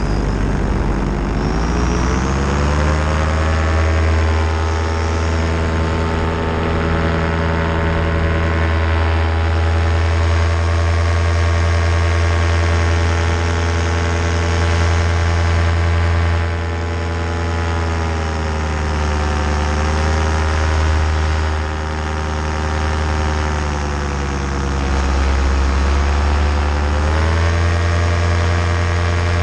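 Paramotor engine and propeller running in flight. The pitch climbs as the throttle opens over the first couple of seconds and then holds steady. It eases off briefly past the middle and again for a few seconds after that, then climbs back up near the end.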